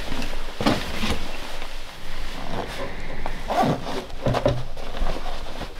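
A backpack being packed and closed up by hand: nylon fabric rustling, a zipper being pulled and gear shifting against the pack in a series of irregular scrapes.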